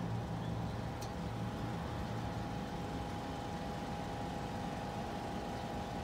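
Steady engine and road noise of a moving car.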